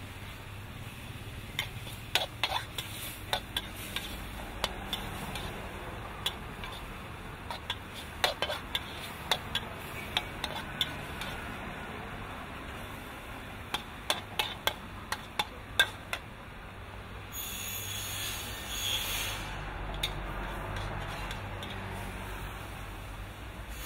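Metal ladle scraping and clanking against a steel wok as minced pork with holy basil and chillies is stir-fried, over a steady sizzle. The clanks come in irregular clusters, and a louder hiss swells for a few seconds about seventeen seconds in.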